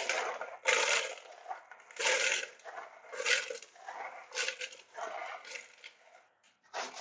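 Small copper spiral prismatic packing (SPP) pieces being stirred and rubbed together by hand in a plastic colander as they are washed. The sound is a gritty metallic rustling and crunching that swells and fades in irregular strokes, about one a second.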